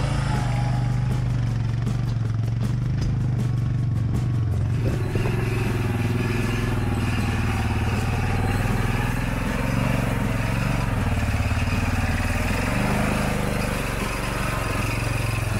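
ATV engines running steadily at low speed over a rocky trail, with the engine note changing about five seconds in; in the second part the engine heard is a red Arctic Cat ATV's.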